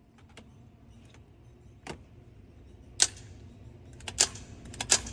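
A series of sharp clicks and clacks at irregular intervals, with the loudest about three, four and five seconds in.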